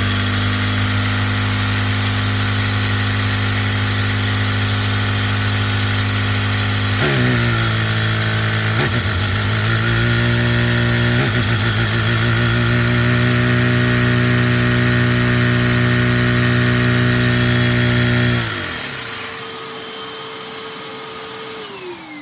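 Lego one-cylinder vacuum engine running fast through a Lego four-speed Lenco transmission of straight-cut gears, a steady pitched drone with a hiss above it. Its pitch dips and comes back up twice, about seven and eleven seconds in, as gears are shifted. About eighteen seconds in the drone drops away, leaving a single tone that slides down near the end as it winds down.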